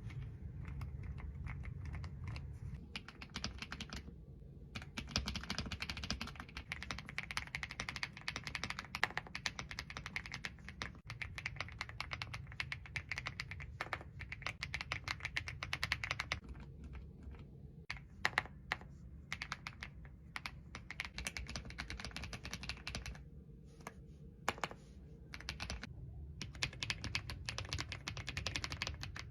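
Mechanical keyboard tuned for a 'creamy' sound being typed on quickly, a dense run of soft keystroke clacks. The typing pauses briefly about four seconds in and again around twenty-three seconds.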